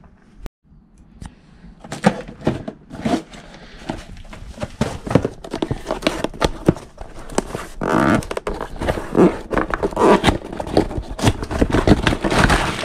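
Irregular knocks, clinks and scrapes of clutch parts being handled, mixed with rustling of plastic packaging. The noise gets busier and louder in the second half.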